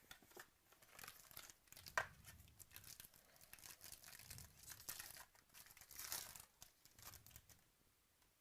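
Trading card pack wrapper being torn open and crinkled by hand, with a sharp click about two seconds in and a longer crinkle near six seconds.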